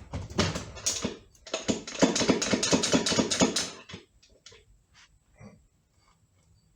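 Rapid tapping and clicking as the stuck front pump of a C6 automatic transmission is worked loose. It comes as a dense run of sharp knocks for about four seconds, then a few scattered clicks.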